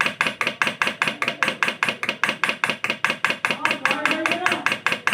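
Solenoid diaphragm dosing pump clicking rapidly and evenly, about six or seven strokes a second: the pump is pulsing normally again after its repair.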